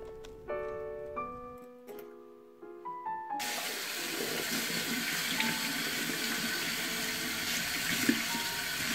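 Soft background music of single notes, then about three and a half seconds in a kitchen tap starts running into a stainless steel sink, splashing over hands and the sink strainer being washed beneath it, with the music still faintly on top.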